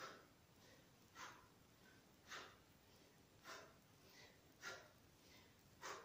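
Faint, sharp exhalations of a woman doing crunches with her legs raised, one breath per repetition: six short puffs a little over a second apart.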